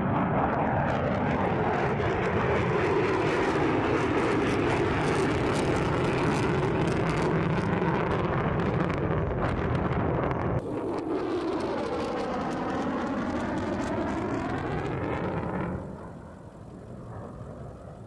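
Jet noise from a B-1B Lancer's four General Electric F101 afterburning turbofans during a low flyby, with the sweeping, phasing whoosh of an aircraft passing overhead. About ten seconds in, a cut brings a second, slightly quieter pass with an even stronger sweep, and near the end the jet noise gives way to a quieter hiss.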